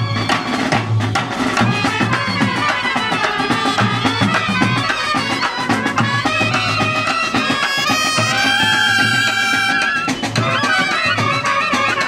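A Kerala band set playing: reedy wind instruments carry a melody over a steady drum beat, with a long held note about eight seconds in.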